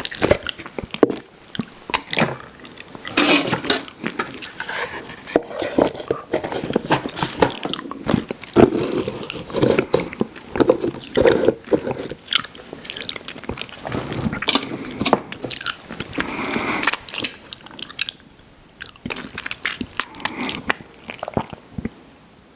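Close-miked mouth sounds of someone eating ice cream: wet chewing, lip smacks and mouth clicks in an irregular stream, growing sparser near the end.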